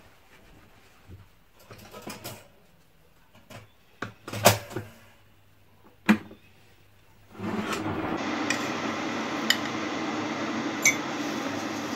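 Kitchen handling noises: scattered knocks and clicks of crockery and appliances, with a sharp click about six seconds in. From about seven seconds, an electric kettle runs with a steady rushing rumble as it heats, with light clinks of a metal spoon against the coffee jar and cup on top.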